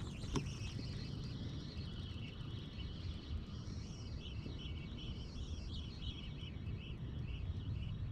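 A small songbird calling in a run of short, repeated high chirps, about three a second, over a steady low background rumble. A single sharp click sounds about half a second in.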